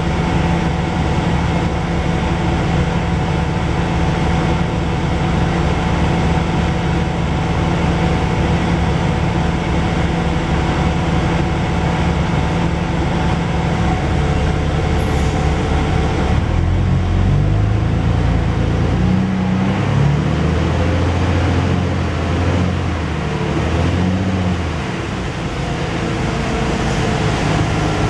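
Dennis Dragon double-decker bus's rear-mounted diesel engine running, heard from inside the saloon. The engine note is steady at first, then changes pitch and becomes uneven about sixteen seconds in.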